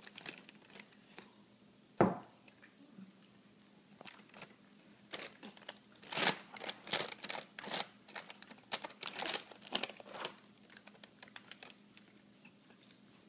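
Large plastic bag of tortilla chips crinkling in irregular bursts as a baby grabs and pats at it, with one sharp knock about two seconds in.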